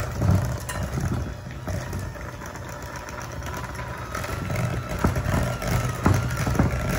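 Electric hand mixer running steadily, its beaters creaming butter and shortening in a glass bowl, with a few sharp knocks of the beaters against the bowl and a thin higher whine joining about four seconds in.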